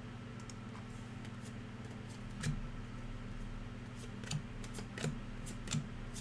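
Trading cards being handled and flipped through by hand: irregular light clicks and snaps over a steady low hum.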